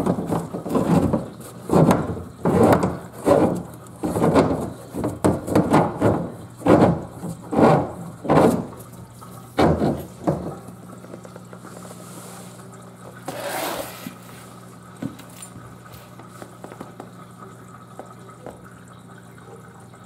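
Dishwasher running: water sloshing and gurgling in rhythmic surges for about ten seconds, over a steady low machine hum that carries on alone after that, with one brief hiss about halfway through.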